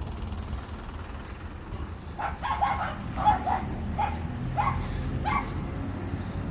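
A dog barking in a quick run of short, high yips, about eight in three seconds starting around two seconds in, over a steady low rumble.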